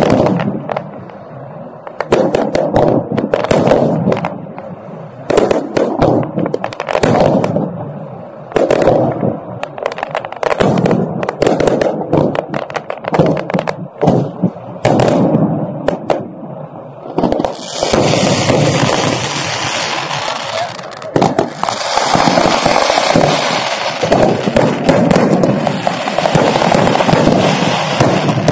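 Aerial fireworks display: shells bursting overhead in irregular clusters of sharp bangs. About 17 seconds in, a dense, continuous barrage of reports takes over.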